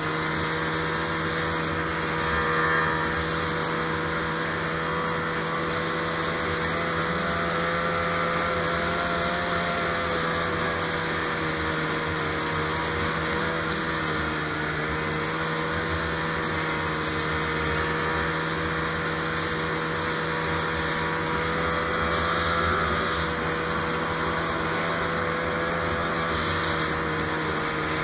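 Polaris two-stroke snowmobile engine running at a steady trail cruise, heard from the rider's own sled, with track and snow noise beneath it. The engine note holds nearly constant, shifting only slightly in pitch.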